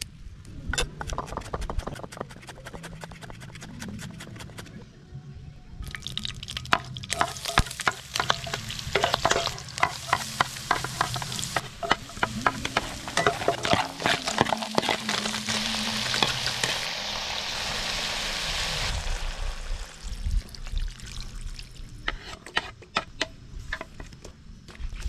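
Shallots, garlic and ginger sizzling in oil in a wok, with a wooden spatula stirring and tapping against the pan. The sizzle is loudest through the middle and dies down about three-quarters of the way in, leaving scattered clicks and knocks, as there are at the start.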